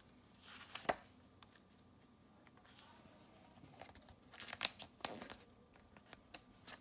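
Paper handling: a picture book being opened and its pages turned, with a soft rustle about a second in and a cluster of sharper page snaps and rustles past the middle.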